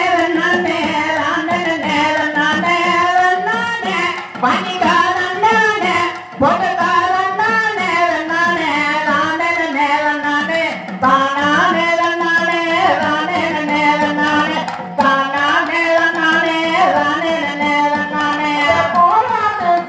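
A Tamil Mulaippari folk song: a sung melody with drum accompaniment, continuing steadily with only brief breaks between phrases.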